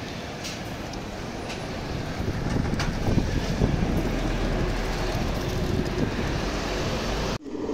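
Road traffic on a busy city street: passing cars and the low engine rumble of a large lorry close by, getting louder about two seconds in. The sound cuts off abruptly just before the end.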